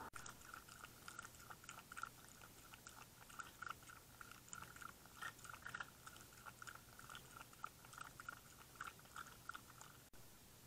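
An animal eating from a plastic dish right at the trail camera: faint, quick, irregular crunching and smacking of chewing, which stops abruptly about ten seconds in.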